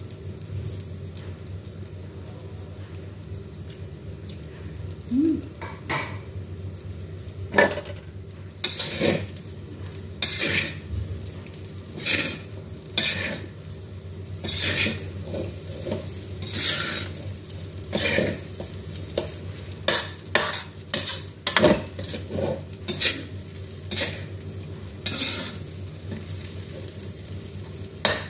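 Metal spatula scraping and tossing fried rice around a large metal wok, over a steady frying sizzle. The scrapes are few at first, then come irregularly about once a second from about six seconds in.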